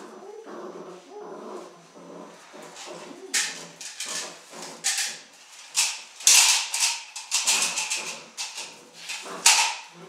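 Malinois puppy growling and whining while it bites and tugs a rag. Loud scuffling and scraping noises come in from about three seconds in.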